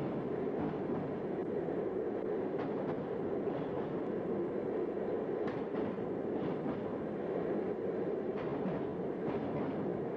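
Train running through a tunnel: a steady low rumble, with a few faint clicks scattered through it.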